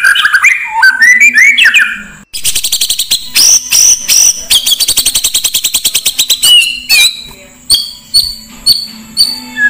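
Oriental magpie-robin (kacer) song played as a lure: quick rising whistled phrases, then, after an abrupt cut, a long rapid trill of repeated notes lasting about four seconds, ending in scattered short whistles and chips.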